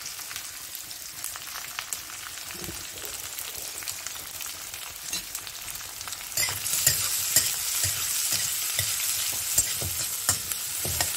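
Chopped onions sizzling in hot oil in a steel kadhai over a high gas flame. About six seconds in the sizzle gets louder, and a metal spatula scrapes and taps against the pan as the onions are stirred.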